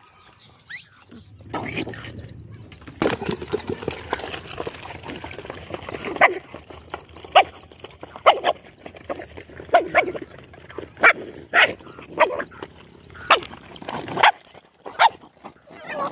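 Puppies barking and yipping: short sharp yaps about once a second from about six seconds in.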